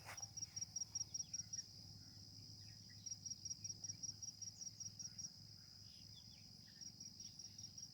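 Field insects chirping: a high, thin trill of rapid, evenly spaced pulses that comes in runs of a second or two, stopping and starting again.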